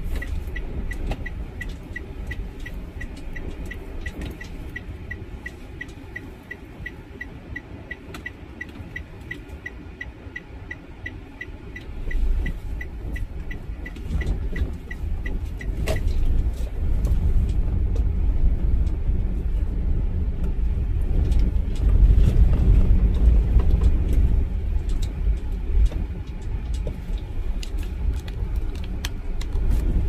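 Car engine and road rumble heard from inside the cabin, with the turn-signal indicator ticking about three times a second through the first half and stopping about halfway through. The rumble grows louder in the second half.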